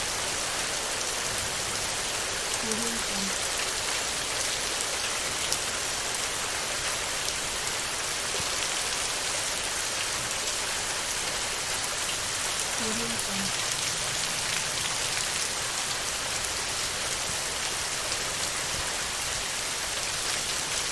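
Steady heavy rain falling on a tin roof: a dense hiss with fine drop ticks. A faint spoken 'AudioJungle' watermark is heard twice, about ten seconds apart.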